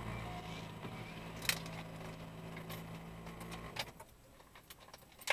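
A vehicle engine running with a steady low hum and light clicks, which stops abruptly about four seconds in. Scattered clicks and rattles follow, ending in one sharp knock.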